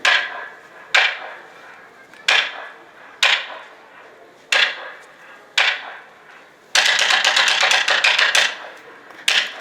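Kabuki wooden clappers struck hard to mark the stage action. Six single sharp clacks come about a second apart, then a fast roll of strikes lasting about two seconds, then one last clack.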